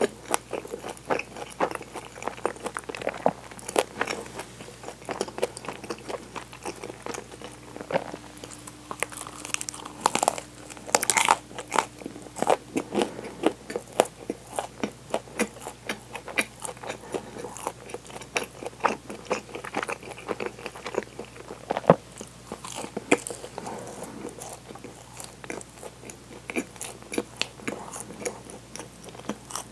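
Close-up chewing and crunching of crusty chocolate bread ring, with many small crackles of the flaky crust and a cluster of louder crunches about ten seconds in.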